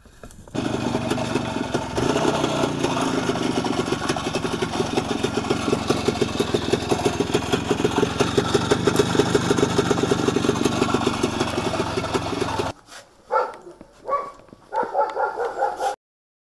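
WSK 125 Lelek's single-cylinder two-stroke engine idling with a rapid, even beat, cutting off suddenly about three-quarters of the way through; a few short separate bursts of sound follow near the end.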